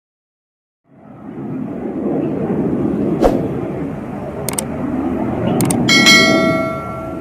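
Express passenger train running through at speed: a steady rumble of wheels on rails, broken by a few sharp metallic clicks. Near the end comes a ringing metallic clang that dies away over about a second.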